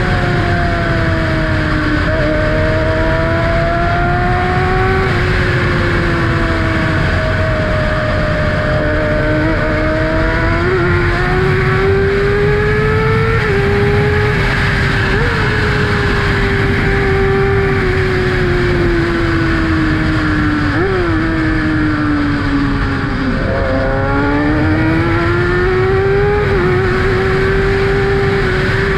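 The 2012 Kawasaki ZX-6R's inline-four engine running through an M4 Tech 1 aftermarket exhaust, heard from the rider's seat while cruising. Its note rises and falls gently with the throttle, dips and then climbs again about three quarters of the way through, over a steady rush of wind.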